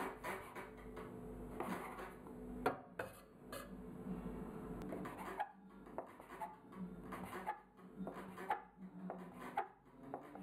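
Metal bench scraper chopping strips of soft dough into small pieces on a wooden table. Its blade knocks against the wood in quick, irregular taps, a few a second.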